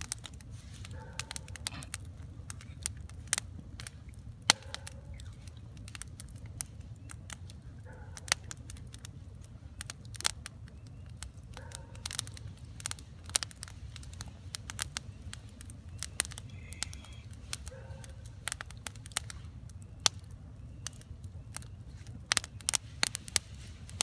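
Wood campfire crackling, with irregular sharp snaps and pops over a steady low rumble.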